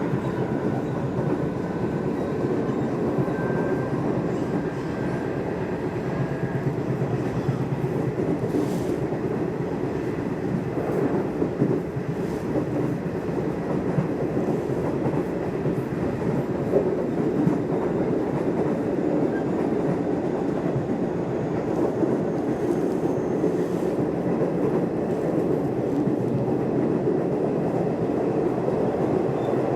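Nishitetsu electric commuter train running along the line, heard from inside the car: a steady rumble with a few clicks of the wheels over the track. A thin steady whine sits on top for the first several seconds.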